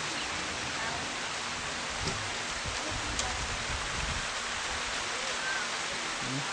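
Steady hiss of rain falling, with a few faint short chirps over it.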